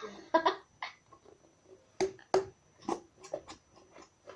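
Homemade slime being squeezed and worked by hand, giving a string of irregular sharp wet clicks and pops.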